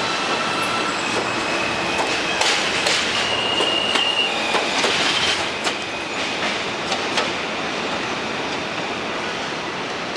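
R160 subway train running along the track, wheels squealing in high steady tones for a few seconds with sharp clicks from the wheels over rail joints, then the rumble eases off.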